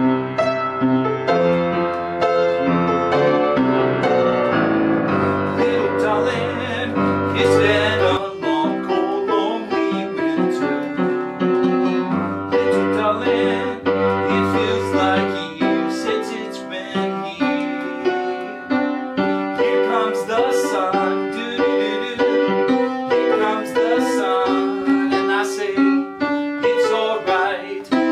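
Acoustic upright piano played solo: a flowing piece of chords and running notes over a deep bass line, the low bass notes dropping out for a while about eight seconds in and returning for a few seconds near the middle.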